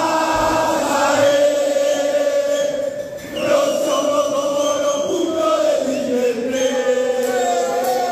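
Crowd of Boca Juniors football supporters singing a chant together, many men's voices holding long sung notes. The singing drops briefly about three seconds in, then picks up again with the next line.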